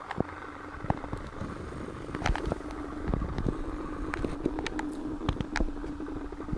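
Homemade smoke machine running: its small air pump hums steadily, with scattered sharp clicks and crackles throughout.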